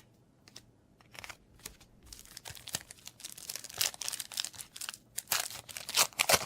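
Crinkling of foil trading-card booster pack wrappers and cards being handled, a run of irregular rustles that grows louder toward the end.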